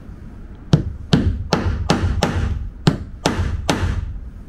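Claw hammer driving a nail into stacked plywood: eight sharp strikes starting just under a second in, a little over two a second, with a short pause after the fifth. Each strike rings briefly.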